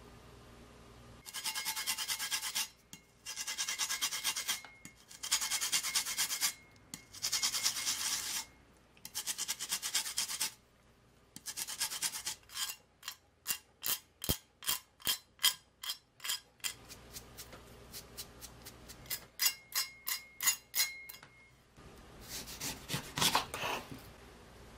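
Green lemon being grated on a handheld zester: about six long rasping strokes, then rapid short strokes about three a second that grow fainter. A brief burst of other handling noise comes near the end.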